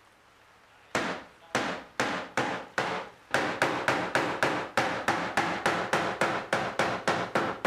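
The end of a rolling pin beating folded fabric laid over flower petals on cardboard and a chopping board, pounding the petal colour into the cloth. The blows start about a second in, slow at first, then quicken to a steady three or four knocks a second.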